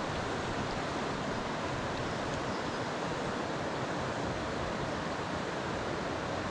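Steady rushing of a shallow river tumbling over rocks in a riffle, an even noise that does not change.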